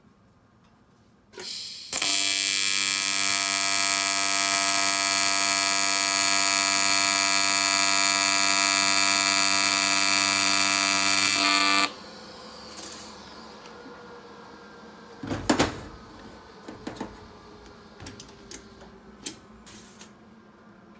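AC TIG welding arc on aluminum pipe: after a brief crackle of arc start about a second and a half in, a loud steady buzz runs for about ten seconds and then cuts off. A softer steady hiss follows, with a knock a few seconds later and some light clicks.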